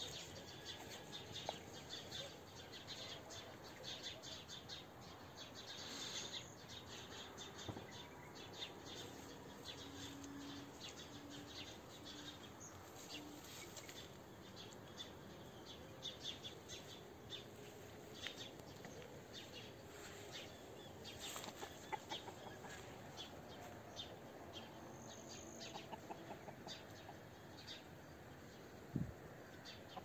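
Birds chirping quietly, with many short, high calls throughout and a few lower calls in the middle and later on. A single low thump near the end.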